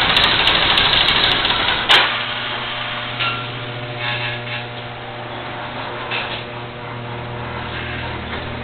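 1975 Honda GL1000's flat-four engine running on its first start after new timing belts. A sharp click about two seconds in, after which the engine idles more quietly and steadily.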